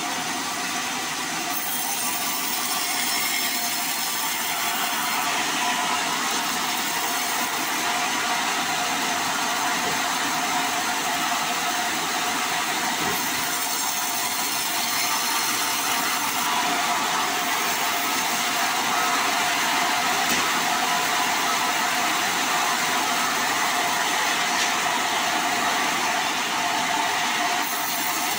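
Vertical log band saw cutting lengthwise through a sonokeling (Indian rosewood) log into planks: a steady, even sawing noise.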